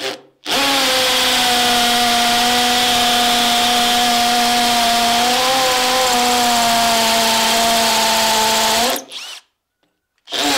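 A Bosch GSB 12V-30 12-volt cordless hammer drill runs in hammer mode, boring an 8 mm masonry bit into a concrete block: a steady motor tone over the noise of the hammer action. At its recommended maximum bit size the drill advances slowly. It stops for about a second near the end, then starts again.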